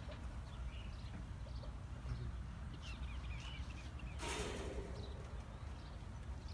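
Outdoor farmyard ambience: a steady low rumble with a few faint, short bird chirps, and a brief hissing rustle about four seconds in.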